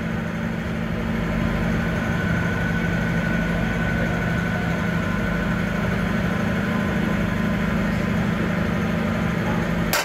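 Steady machine hum with a noisy rush underneath and a faint high whine in the middle, cutting off suddenly at the end.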